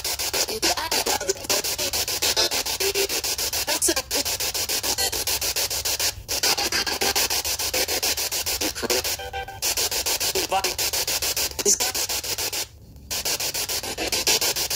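Spirit box sweeping through radio frequencies: a steady, rapid, choppy hiss of static cut into many short pulses, dropping out for a moment near the end.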